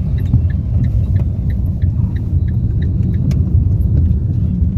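Steady low rumble of a car driving along, heard inside the cabin: engine and tyre noise. A faint regular ticking, about four ticks a second, runs through the first half.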